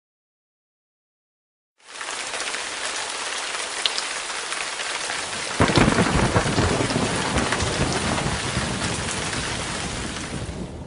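Rain pouring steadily, starting after about two seconds of silence, with a low rumble of thunder rolling in about halfway through.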